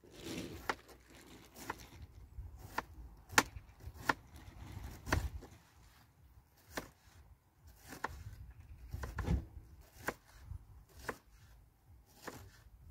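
A kitchen knife chopping an onion on a cutting board, in about a dozen separate strokes roughly a second apart.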